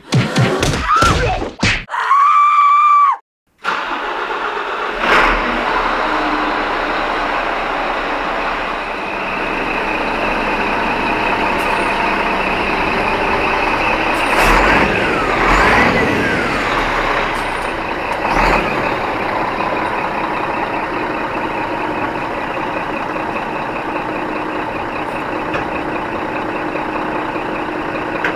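Heavy truck and traffic noise, steady throughout, with a few sharper hisses and knocks around the middle, typical of air brakes. It opens with a few seconds of gliding whistle-like tones, which cut off sharply just before the truck noise begins.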